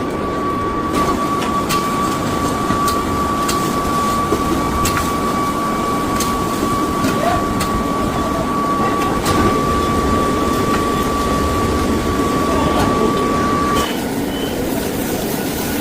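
Heavy factory machinery running with a steady, loud rumble and a constant high whine that cuts off suddenly near the end. Scattered sharp metallic clicks and knocks sound over it.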